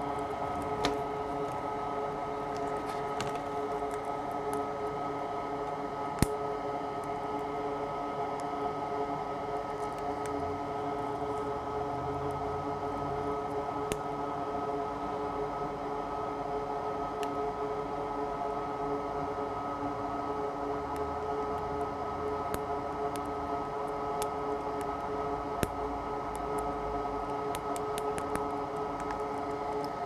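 Steady hum of a small fan-driven machine on a repair bench, holding several fixed tones, with a few faint clicks and taps, the sharpest about six seconds in.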